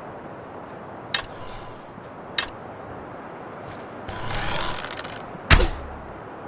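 Bow-and-arrow sound effects: two sharp clicks, then a noisy swish lasting about a second, followed by one loud sharp hit about five and a half seconds in and another click at the end.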